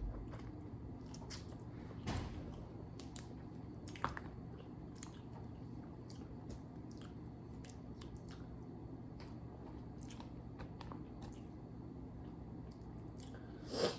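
Close-miked eating sounds of someone chewing seafood: soft wet squishes and small clicks scattered irregularly, a few slightly louder about two and four seconds in, over a low steady hum.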